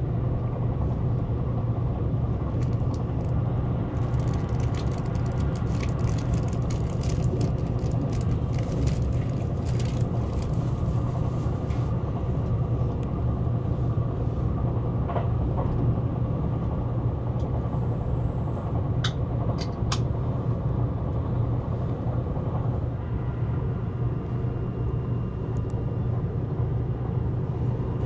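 Seibu 001 series Laview limited express train running at speed, heard inside the passenger cabin as a steady rumble and low hum. A spell of light clicks comes partway through, with a few more later.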